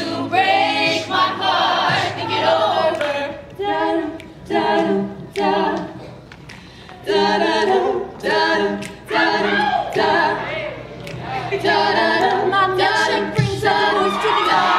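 An eight-voice mixed a cappella group sings a pop-song mashup with no instruments. The voices land together in short, punchy chords, repeated in a rhythm, with a quieter stretch about halfway through.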